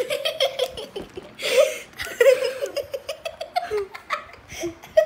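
A child laughing, a run of short pulsing giggles that goes on throughout.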